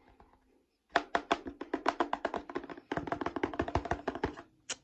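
A hand rapidly tapping and patting the plastic grille of a Kenwood 12-inch subwoofer, about seven quick taps a second, each with a low knock. The tapping starts about a second in, breaks briefly in the middle and stops near the end.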